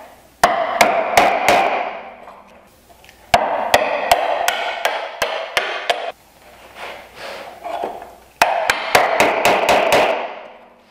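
Mallet striking a chisel to chop the open mortise of a bridle joint into wood: three runs of quick blows with short pauses between.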